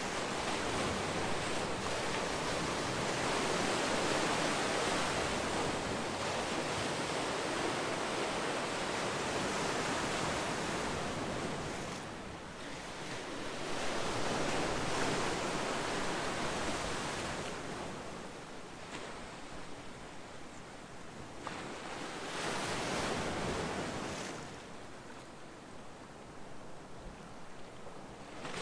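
Ocean surf: a rushing wash of waves that rises and falls in slow swells, loud and continuous at first, then with quieter lulls between shorter surges in the second half.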